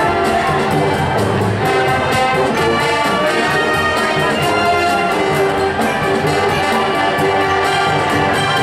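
Marching band playing: brass holding full chords over a steady drum beat.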